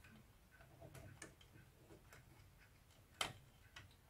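Quiet handling of a VCR's loading mechanism: a few small clicks of plastic and metal parts being moved by hand, the sharpest about three seconds in.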